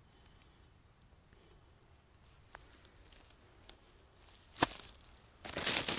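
Footsteps in dry leaves: a few scattered crackles, a sharp snap about two-thirds of the way through, then loud, close crackling of leaves underfoot near the end.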